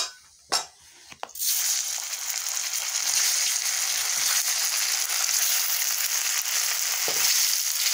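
Gram-flour-stuffed dough balls (ghathi/litti) deep-frying in hot oil in a pot, sizzling loudly and steadily. The sizzle starts suddenly about a second and a half in, after a few sharp clinks of a utensil against the pot.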